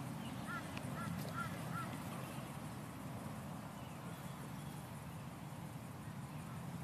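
Butcher bird calling: a quick run of five short, arched, honking notes, about two to three a second, over a steady low background rumble.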